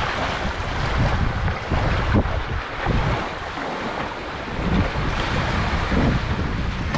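Wind buffeting the microphone: an uneven rushing noise with gusty low rumbles that ease off for a moment in the middle.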